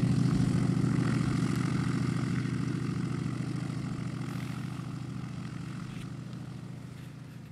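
Z-37A Čmelák's nine-cylinder radial aircraft engine running steadily with its propeller turning, fading out gradually.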